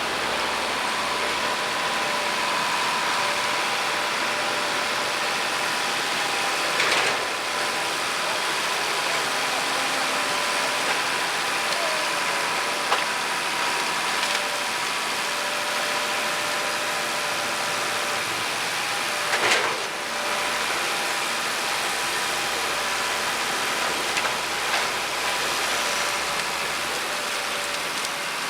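WSM 5472BHCP horizontal grinder running steadily as it grinds biomass feedstock: a dense, even machine noise with a faint whine, broken by a few short louder bangs.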